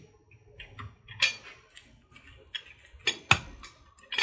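Metal clanks and knocks from a pavement breaker being handled off a hand truck and set down, its steel bit on asphalt. A few light clicks and three sharper clanks; the loudest, about three seconds in, has a dull thud.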